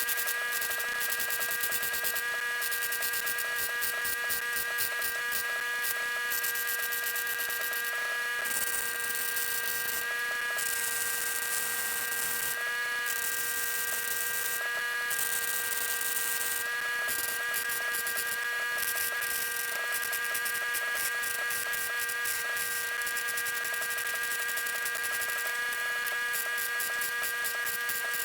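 Electric arc welder laying tack welds on thin 18-gauge sheet steel: a steady buzzing hum with a high crackle, broken by short pauses between tacks.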